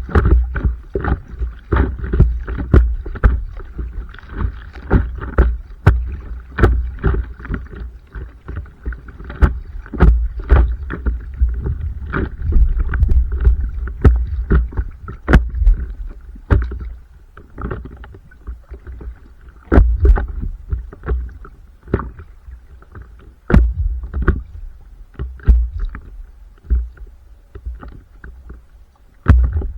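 Stand-up paddleboard being paddled: water splashing and slapping against the board, with frequent sharp knocks and a low rumble.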